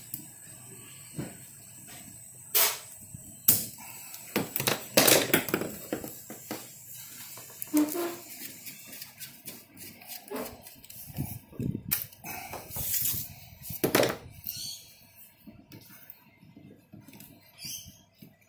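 Plastic irrigation pipe and garden-hose fittings being handled, cut and pushed together against a plastic tub: irregular clicks, knocks and rustles, with a few sharper knocks, the loudest about 5 and 14 seconds in.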